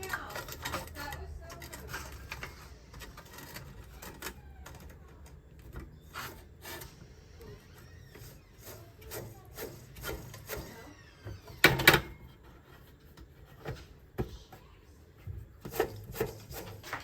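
Scattered clicks, taps and rubbing from hands working the 1x30 belt sander during a belt change, with one louder knock about twelve seconds in.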